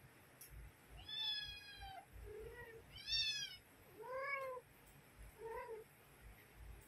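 Domestic cat meowing: five short meows. The two higher-pitched ones come about one and three seconds in, the second of these the loudest, with lower, shorter meows between and after them.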